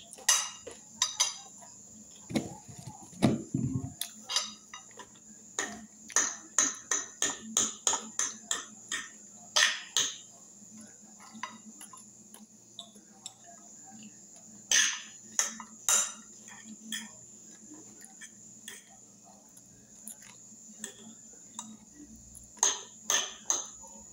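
A metal fork clinking and scraping against a glass dish while eating, in scattered sharp clicks that come thickest about six to ten seconds in, around fifteen seconds, and near the end. A short low voice-like sound is heard about two to four seconds in.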